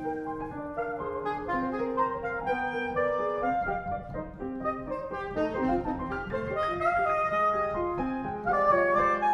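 Soprano saxophone and upright piano playing a choro together.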